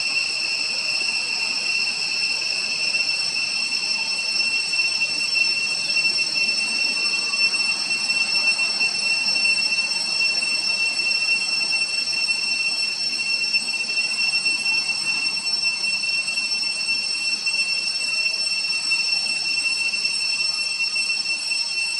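Steady, high-pitched drone of a cicada chorus, several shrill pitches held together without a break.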